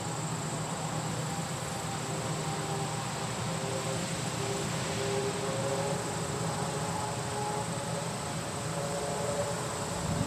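John Deere combine harvester running steadily through corn: an even machine drone with a faint wavering whine.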